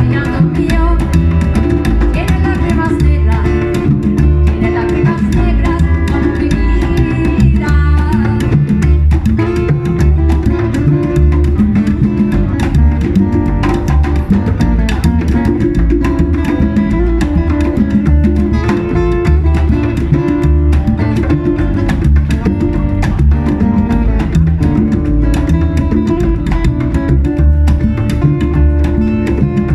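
Latin band playing a guaguancó-style instrumental passage, with guitar over steady bass and drums.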